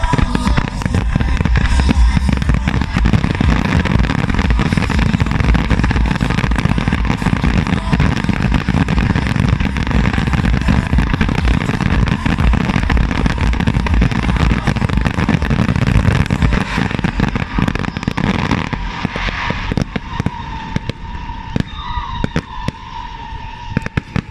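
Firework display finale: a dense barrage of rapid bangs and crackle that thins after about 18 seconds to scattered single bangs.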